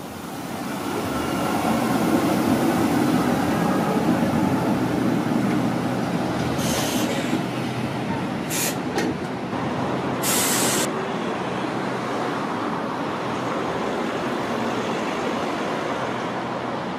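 Green BVB tram train passing close by on a curve: a steady rumble of steel wheels on the rails with a motor hum, loudest about two seconds in and easing slightly afterwards. Several short hisses come around the middle.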